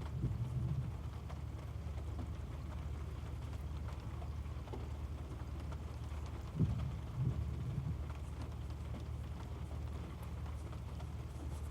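Steady low rumble inside a parked car's cabin, with faint ticks and a couple of soft bumps about six and a half and seven seconds in.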